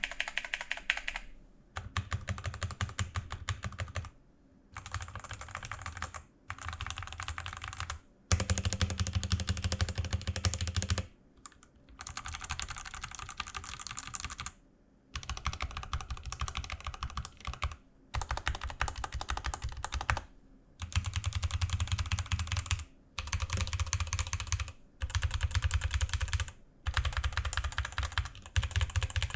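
Fast typing on a Rexus Daiva RX-D68 65% mechanical keyboard with Outemu Red linear switches. The stabilizers are factory-lubed with no rattle or ticking, and there is EVA foam under the plate. The keys clatter in quick runs of a couple of seconds each, with short pauses between runs.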